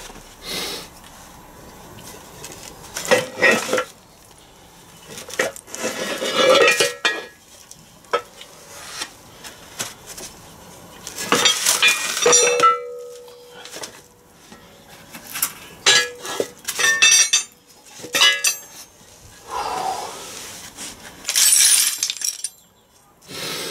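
Metal clanking and clinking as a Land Rover R380 gearbox is taken apart: the main casing is lifted off the gear cluster and set down, with gears and shafts knocking together. Separate clanks come throughout, with one short metallic ring about halfway.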